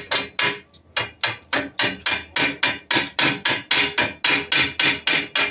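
A hand hammer striking the freshly welded steel main leaf of a Mercedes-Benz truck leaf spring in quick, even blows, about four a second, each with a short metallic ring.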